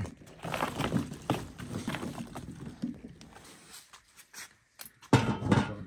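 Dried dung fuel chunks knocking and scraping against a metal stove and tin as they are loaded in: a run of light, uneven clunks, then a louder clatter about five seconds in.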